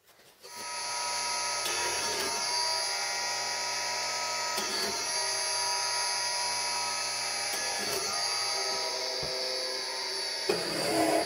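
Handheld electric drill spinning up about half a second in and then running steadily as its bit bores through a wooden strip into a plywood backing board. A couple of louder knocks come near the end.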